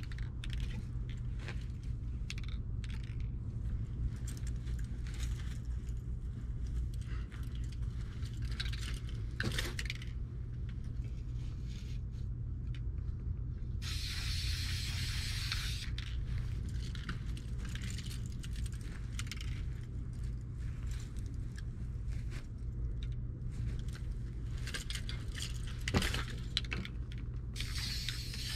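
Aerosol spray paint cans hissing in short bursts through stencils: a brief spray about a third of the way in, a longer one around halfway, and another at the end. Between the bursts come light clicks and clinks as the stencils and cans are handled, over a steady low rumble.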